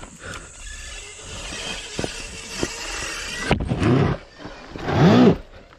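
A climber's scuffling and rustling on the slope, with a few knocks, then two short effort grunts, about four and five seconds in, as he hauls himself up.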